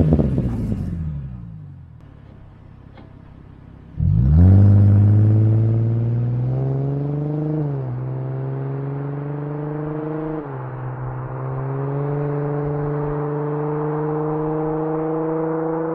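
Ford Mustang 4.0 V6 running through a homemade glass-pack muffler. The car pulls away and fades over the first two seconds. About four seconds in the exhaust comes in loud again, accelerating with the note climbing and dropping back twice at gear changes, then pulling steadily.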